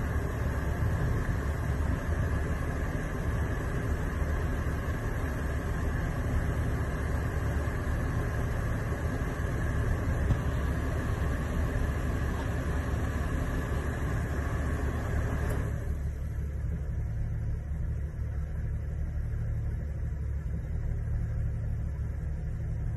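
Vehicle engine rumbling steadily and low, with a higher layer of engine and track noise that drops away suddenly about 16 seconds in.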